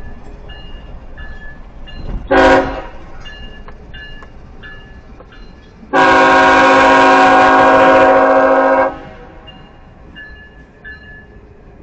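CSX diesel locomotive air horn sounding one short blast about two seconds in, then a long blast of about three seconds.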